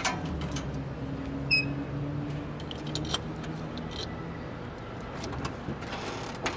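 Keys jangling and clicking as a key is worked in a deadbolt lock on a steel security gate and the door is handled, a series of sharp clicks with the strongest about a second and a half in. A low steady hum runs underneath.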